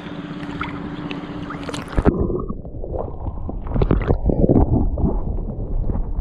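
Open-air water and wind noise on a camera microphone. About two seconds in the camera goes under the sea surface, and the sound turns suddenly muffled: all the high sounds drop out, leaving loud, irregular underwater sloshing and gurgling against the housing.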